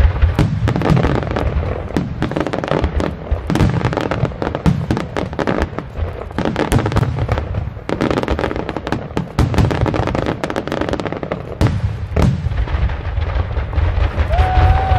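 Aerial fireworks shells bursting in rapid succession: a dense, continuous run of overlapping booms and sharp cracks with low rumbling between them.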